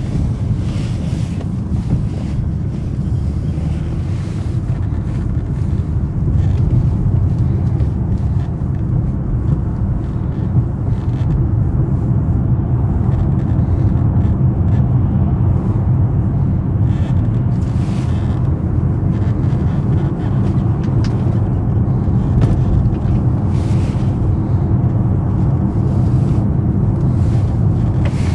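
BMW 750i's 4.4-litre twin-turbo V8 running while driving, a steady low rumble mixed with road and wind noise. It gets a little louder about six seconds in.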